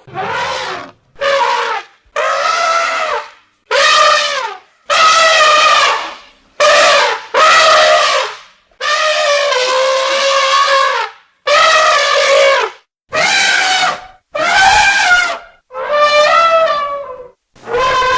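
Elephant trumpeting: about a dozen loud, brassy trumpet calls one after another, each lasting under a second to about two seconds, with short pauses between them.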